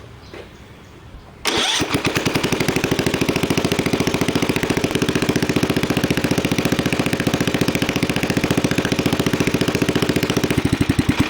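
Snapper riding mower's replacement engine starts about a second and a half in, runs steadily with fast, even firing, and dies away near the end.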